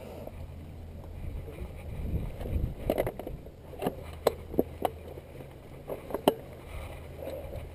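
Wind rumbling on a chest-mounted camera's microphone as a mountain bike rolls along a rough grassy track, with a handful of sharp knocks and rattles from the bike in the middle.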